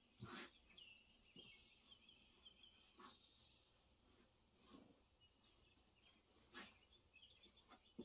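Faint birdsong, short high chirps and trills, played from a bird video on a television across the room, with a few brief noises in between.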